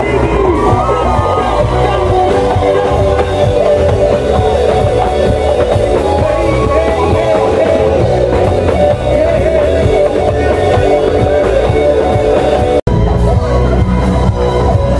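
Loud live band music with a singer, electric bass and drums, played through a PA. The sound cuts out for an instant near the end.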